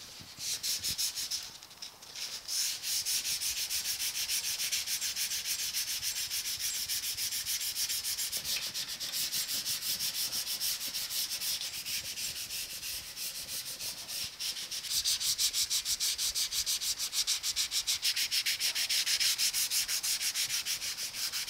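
Dry hand sanding with 220-grit sandpaper backed by a folded Scotch-Brite pad on the primed steel grill, in quick, steady back-and-forth strokes. This is the first sanding of the cured primer, levelling out its orange peel.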